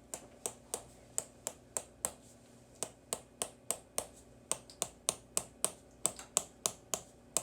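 Chiropractic activator adjusting instrument clicking in a steady rhythm, about four sharp clicks a second, with a short pause a little over two seconds in.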